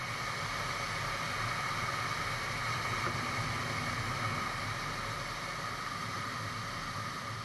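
Steady rushing airflow over a camera mounted on the wing of a glider in flight, heard as even wind noise with no engine.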